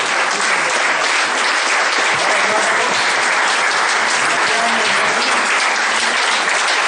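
A large audience applauding: dense, even clapping that holds steady throughout.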